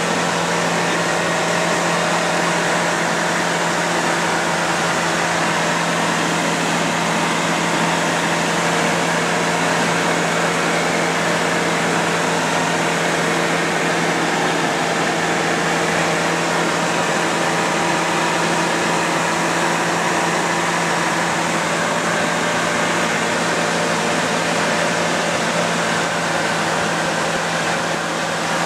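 Light aircraft's piston engine and propeller running steadily in cruise, heard inside the cockpit as an even drone mixed with airflow noise.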